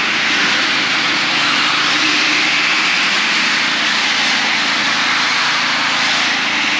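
Radio-controlled cars racing on a parking garage's concrete deck: a steady, unbroken noise of their motors and tyres with no clear pitch.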